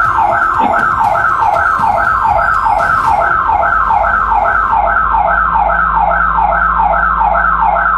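Security alarm siren going off, a loud falling tone repeated about two to three times a second, set off by an attempted break-in at the front door. Heard through a doorbell camera's microphone.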